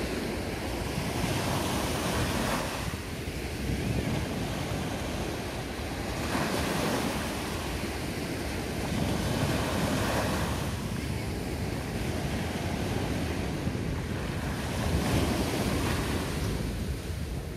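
Small waves breaking and washing up a sandy beach, the wash swelling and ebbing every few seconds, with a low rumble of wind on the microphone.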